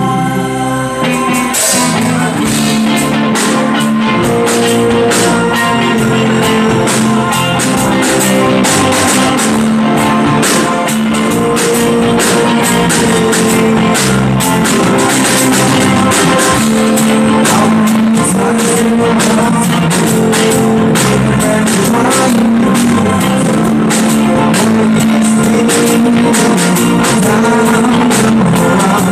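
Live rock band playing loud amplified music: electric guitars and a drum kit, with the drums coming in about two seconds in.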